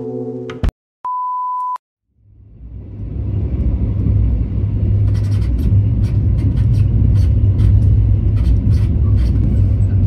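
Lo-fi background music cuts off in the first second, followed by one short steady beep. Then the deep, steady rumble of a moving passenger train, heard from inside the carriage, fades in and holds, with faint clicks over it.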